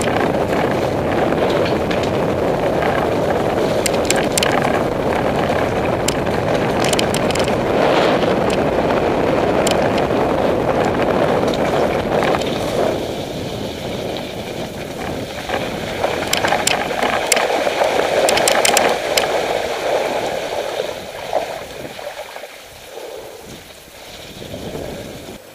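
Mountain bike riding down a muddy lane: wind buffeting the microphone and tyre rumble, with frequent sharp clicks and rattles from the bike. The noise dies down over the last few seconds.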